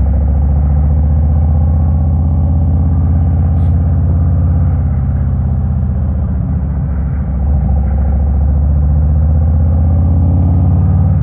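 Harley-Davidson Road King's V-twin engine running steadily while the motorcycle is ridden along the road, with a brief dip in level about seven and a half seconds in.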